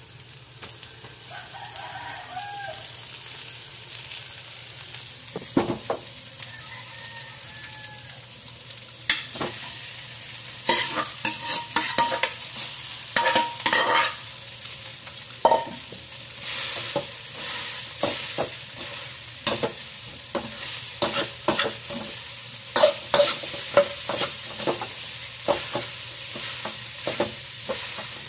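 Rice and egg frying in a wok over a gas flame: a steady sizzle, with a metal spatula scraping and knocking against the wok. The scraping strokes come thick and fast from about nine seconds in, as the rice is stirred and tossed.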